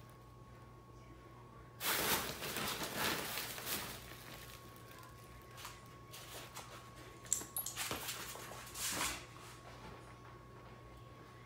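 Rustling and scuffling from a dog and a cat moving around a fabric pop-up cat play tunnel on a wooden floor. It comes in two bursts of about two seconds each, one a couple of seconds in and one just past the middle, with a few light clicks.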